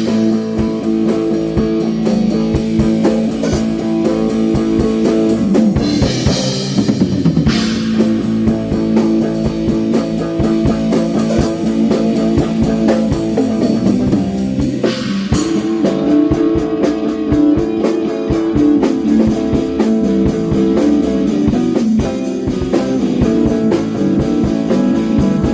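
Rock band playing an instrumental blues-rock passage: guitar chords over bass and drum kit, with cymbals washing in twice.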